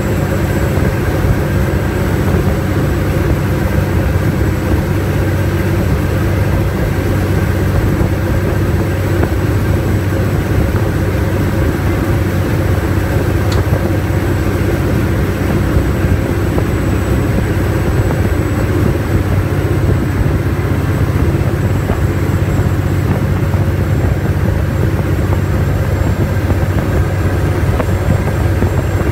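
Engines of a high-speed passenger ferry running steadily underway: a loud, even drone with a low hum and a faint high whine over it.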